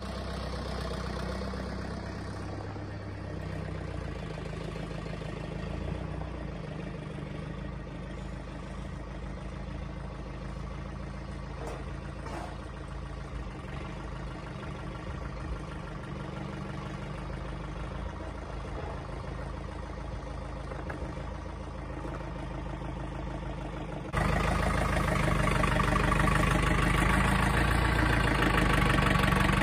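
Compact loader tractor's engine running steadily as it drives, much louder and closer for the last few seconds.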